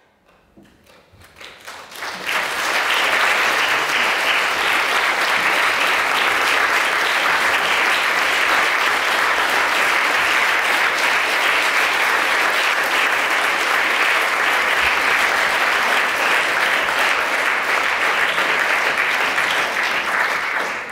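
Audience applauding: scattered claps that swell within about two seconds into full, steady applause, starting to die down right at the end.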